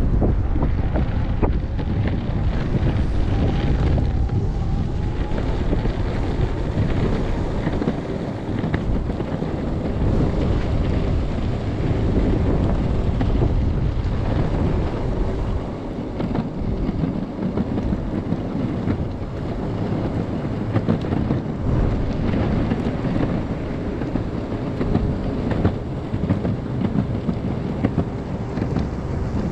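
Strong wind buffeting the action camera's microphone in gusts, a steady low rumble with a faint whine underneath during a ride on an electric skateboard.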